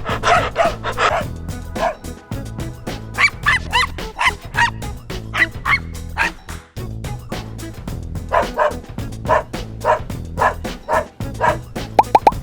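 A dog barking in runs of short, repeated barks over background music.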